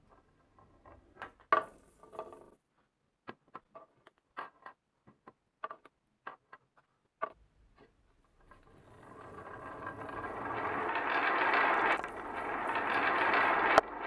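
Wooden balls on a wooden marble run: single clicks and knocks at uneven intervals as balls drop and strike the track, then about eight seconds in a continuous rolling rattle starts and grows steadily louder, with one sharp click near the end.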